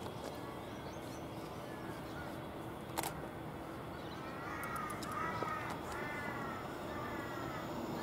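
A crow cawing, a quick run of about five caws halfway through with fainter calls earlier, over a steady background hum. A single sharp click sounds about three seconds in.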